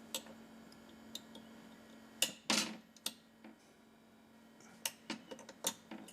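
Irregular light clicks and taps of small metal tools and parts at a watchmaker's bench, a dozen or so sharp ticks spread unevenly, with a faint steady hum fading out in the first half.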